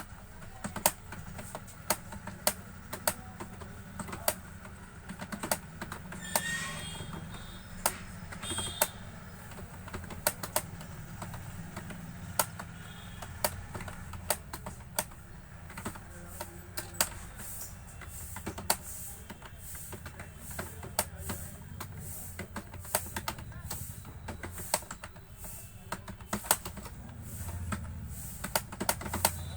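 Computer keyboard being typed on, irregular key clicks that come faster from about halfway through, over a steady low hum.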